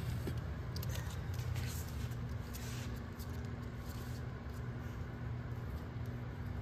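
Five-week-old French bulldog puppies chewing dry kibble from a stainless steel bowl: scattered small crunches and clicks, mostly in the first three seconds, over a steady low hum.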